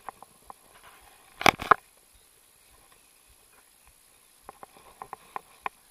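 A small bream flapping in a landing net on grass: a loud cluster of rustling slaps about a second and a half in, then a few scattered soft taps near the end.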